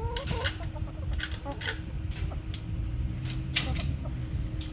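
Backyard hens clucking near the start, among a string of sharp clicks and rustles from handling at the coop, over a low rumble.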